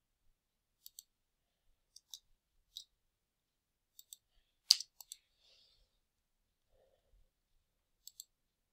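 Computer mouse buttons clicking at irregular intervals, several of the clicks coming as quick double ticks, with one sharper, louder click near the middle.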